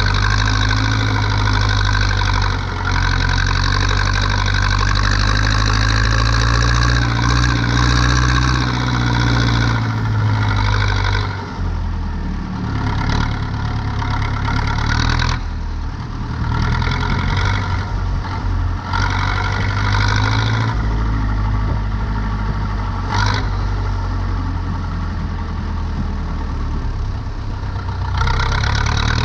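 Zetor 7245 tractor's four-cylinder diesel engine running steadily while turning hay, its note wavering and dipping briefly a couple of times.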